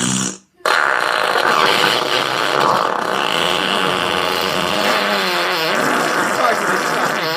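Amazon Echo smart speaker putting out a loud, continuous garbled noise with a warbling pitch instead of the music asked for, starting about half a second in.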